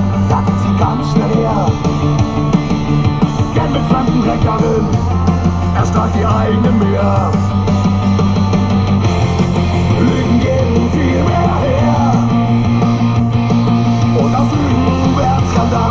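Rock music with guitars and a singing voice, the bass notes changing every few seconds.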